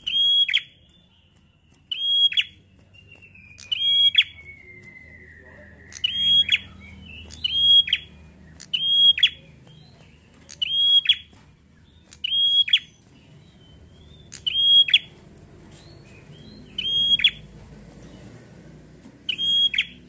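Prenjak calling: a loud, sharp high note that drops off quickly, repeated over and over, about one every one to two seconds.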